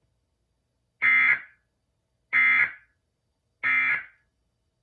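Emergency Alert System end-of-message signal: three short, identical digital data bursts, each about half a second long and a little over a second apart, marking the end of the alert.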